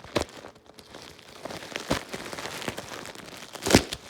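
Bubble-wrap packaging crinkling and crackling as it is handled, in irregular sharp crackles with the loudest near the end.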